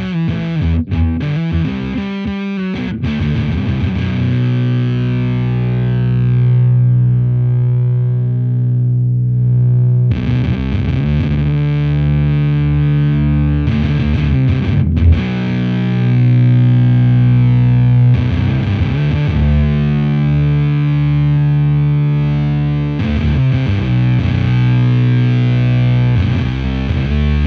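Electric guitar (Fender Stratocaster) played through the Devi Ever Big Distortion Sound Machine fuzz pedal into a Laney VC30 valve amp: heavy, thick fuzz chords left to ring. The first chord sustains for several seconds with its top end fading away before fresh chords are struck, about every four seconds.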